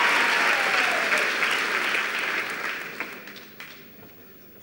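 Audience applauding, the applause dying away about three seconds in.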